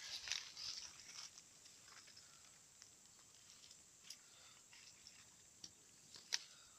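Small campfire of twigs and bamboo crackling faintly, with a few sharp pops later on.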